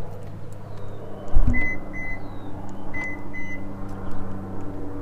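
A thump, then four short high electronic beeps in two pairs, typical of a car's warning chime, over a steady low hum.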